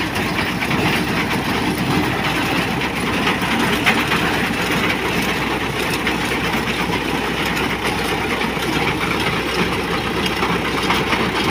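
Engine of a crop reaper running steadily while it cuts a standing soybean crop, with a dense clatter of small clicks over the engine sound.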